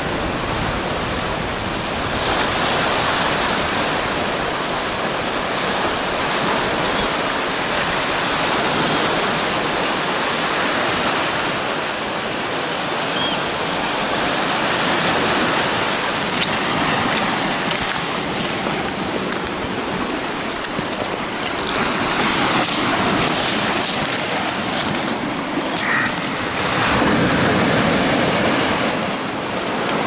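Small White Sea waves washing onto a stony shore, the surf swelling and fading every few seconds. A few short sharp clicks and knocks come in the second half.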